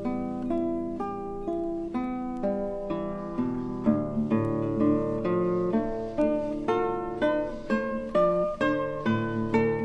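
Background music: a plucked string instrument, guitar-like, playing a melody of quick notes that each ring and fade.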